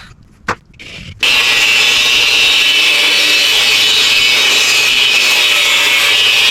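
A few light knocks, then about a second in a power tool starts up and cuts steadily through the Harley rear fender, splitting the guard in half down the middle.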